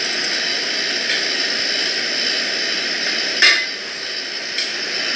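A single sharp metallic clink about three and a half seconds in, a black gooseneck kettle being set down after pouring, with a lighter click about a second later, over a steady background hiss.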